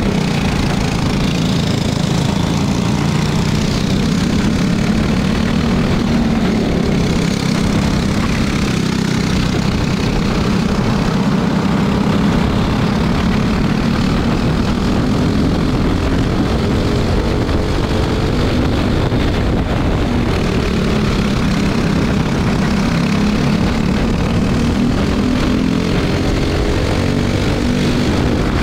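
Four-stroke single-cylinder racing kart engines at full race pace. Their pitch climbs as the karts accelerate out of corners and sags when they lift for the next turn, over a steady rush of wind noise.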